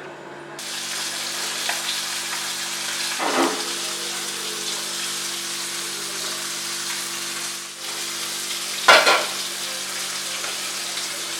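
Freshly caught river fish frying in hot oil: a steady sizzle that sets in about half a second in, with two short louder sounds around three and nine seconds in.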